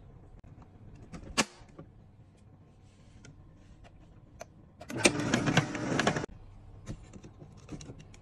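Plastic parts of a Nama J2 cold press juicer being fitted together. A sharp click sounds as the lid is pressed onto the hopper, then about five seconds in a loud plastic scraping rattle lasts just over a second as the hopper is seated on the base, followed by a few light clicks.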